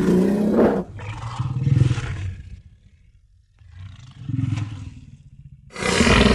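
Custom-made monster roar sound effects for the Distortus Rex, a fictional mutant dinosaur. A loud roar trails off within the first second, low rumbling growls come twice with a quiet gap between them, and another loud roar starts near the end.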